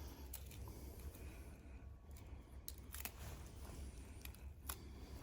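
Faint handling noises of tire repair tools and a rubber repair strip: a few short, sharp clicks and ticks spread out over a low steady hum.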